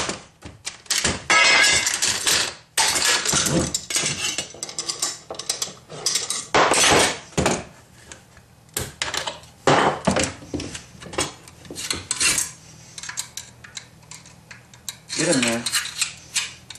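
AK-47 rifle being field-stripped by hand: a string of metal clicks, clacks and knocks as the dust cover, recoil spring and bolt carrier come off and are set down on a wooden bench.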